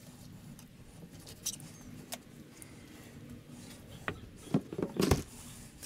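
Knife cutting catfish meat on a plastic cutting board, with small scrapes and clicks. About four to five seconds in comes a short cluster of louder knocks and handling sounds as the fish is picked up and moved.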